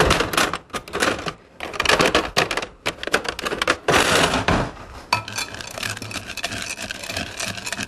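Irregular clicking and clattering of kitchen utensils, then a spatula stirring melted chocolate in a glass bowl, scraping and tapping against the bowl.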